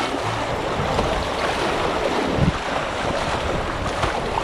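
Rushing water of a shallow creek riffle, splashing steadily against the bow of a kayak running through it.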